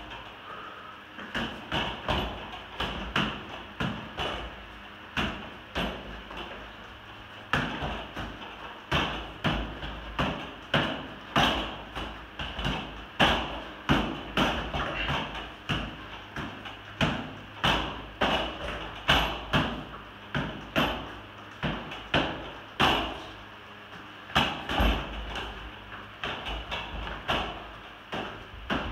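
Repeated punches, kicks and blocks landing on a spinning bar training apparatus, an irregular run of sharp knocks and thuds about one or two a second as the struck arm swings round.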